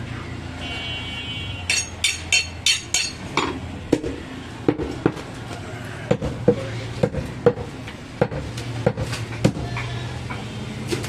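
Butcher's cleaver chopping goat carcass on a round wooden block. A quick run of about five sharp strikes comes first, then a longer series of heavier chops at roughly two a second.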